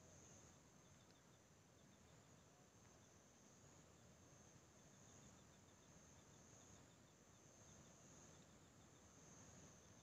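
Faint insects trilling: a steady high-pitched hum that swells and fades every second or two, with a few faint runs of short chirps, over near silence.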